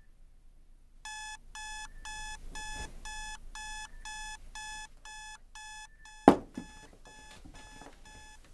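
Phone alarm beeping in a steady repeating pattern, about two and a half beeps a second, starting about a second in. A single sharp thump, the loudest sound, comes a little past six seconds, and after it the beeping carries on more quietly.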